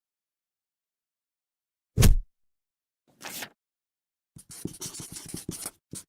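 Silence, then a single low thump about two seconds in, a short brushing noise a second later, and from about four seconds in a run of rapid scratching strokes.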